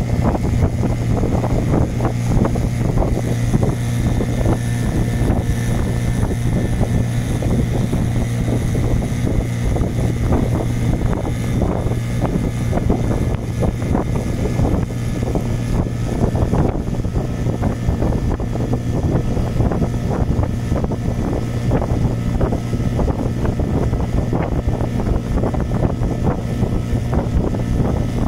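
A motorboat's engine running at a steady cruising speed: an unchanging low drone with a rough rushing noise around it.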